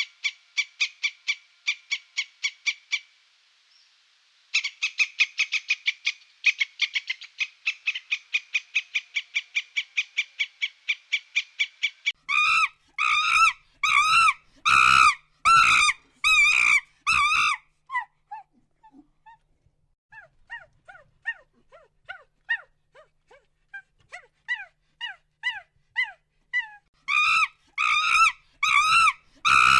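A run of animal calls in several passages. First come fast trains of short, rapidly repeated chirps. Then come loud squeaky calls at about two a second, then fainter chirps that slide downward, and the loud calls return near the end.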